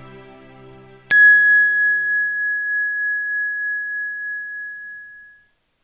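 The last of a soft background music track dies away, then about a second in a single bright bell-like chime rings out, wavering slightly as it fades over about four seconds.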